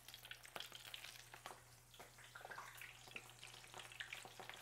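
Battered shrimp deep-frying in hot oil in a cast-iron pan: a faint, irregular crackling and popping.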